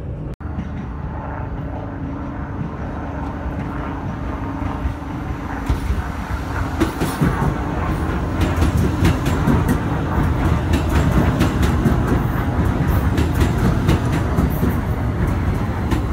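New York City Subway train of stainless-steel R46 cars running along an open-air platform. A steady rumble with a faint hum grows louder from about six seconds in, as rapid wheel clicks over the rail joints come in.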